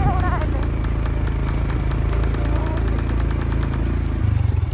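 Motorcycle engine running steadily while riding, heard from on the bike as a deep, even hum; the hum changes character near the end.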